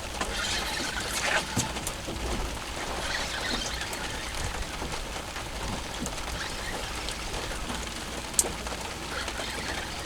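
Faint bird calls over a steady hiss of wind and water, with one sharp click about eight seconds in.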